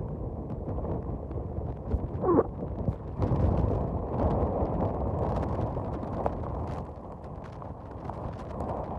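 Hurricane-force wind buffeting the microphone in a dense, gusting rumble, with many sharp ticks of rain and spray striking. A brief whistle rises and falls about two seconds in.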